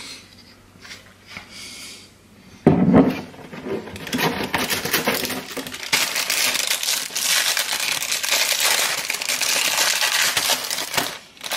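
A thump about three seconds in, then several seconds of dense crinkling and rustling as a plastic sleeve of crackers is handled and opened.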